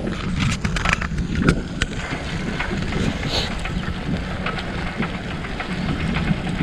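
Wind buffeting the microphone over a steady low rumble, with frequent short clicks and rattles from an old bicycle rolling over a rutted, muddy dirt road.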